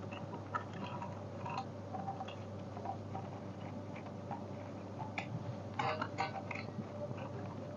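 Scattered light clicks and taps of small parts and tools being handled, with a small cluster of them about five to six seconds in, over a steady low hum.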